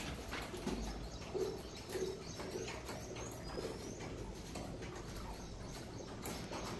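A bird cooing in the background, a short low note repeated four or five times in the first few seconds, with a few faint high chirps; faint light ticks and scrapes run underneath.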